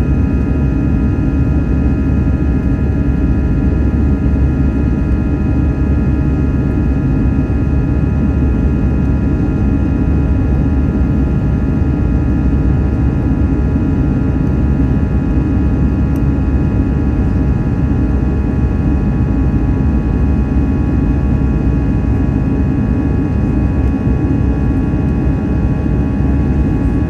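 Airbus A320-200's twin jet engines running steadily: a loud low rumble with several steady whining tones above it, holding the same level and pitch throughout.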